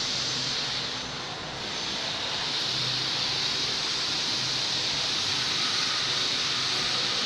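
Packing machine running: a steady hissing whir with a faint low hum, dipping slightly about a second in.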